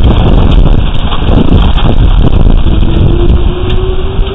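Hailstorm: hailstones and heavy rain pelting down, many sharp impacts over a dense hiss, with wind buffeting the security camera's microphone. Very loud. About two-thirds of the way in, a faint tone starts and rises slowly in pitch.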